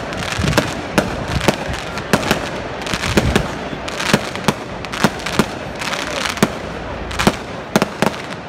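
Aerial firework shells bursting in quick, irregular succession: sharp bangs several times a second over a continuous background of noise.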